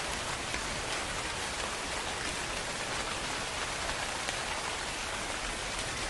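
Steady rain falling: an even hiss with scattered soft drop taps.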